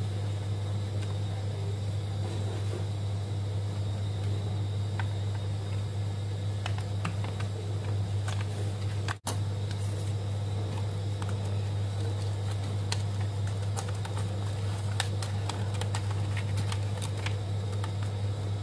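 Steady low hum, with scattered small clicks and taps of handling; the sound cuts out for an instant about nine seconds in.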